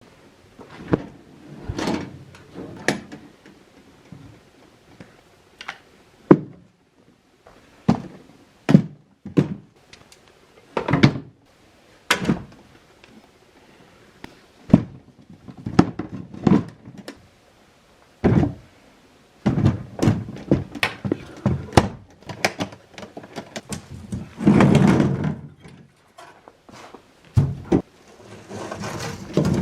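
Assorted hard objects being dropped and tossed into a foley crash bin, making a string of irregular thunks and clattering knocks. A longer rattling jumble comes about three-quarters of the way through, and another near the end.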